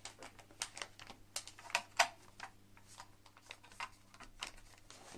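Irregular light clicks and taps, several a second, as a motherboard with a cooler backplate fitted beneath it is handled and set down on an anti-static bag.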